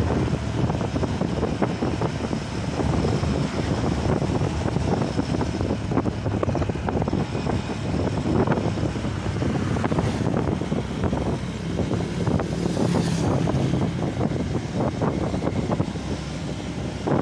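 Wind buffeting the microphone on a moving motorcycle, with the motorcycle's engine running underneath.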